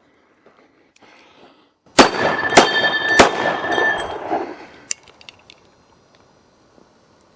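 Three shots from a Ruger SR-1911 Commander .45 ACP pistol, fired about 0.6 s apart starting about two seconds in, with a loud echo after each that fades over the next second or so. A single smaller sharp click follows about a second and a half later.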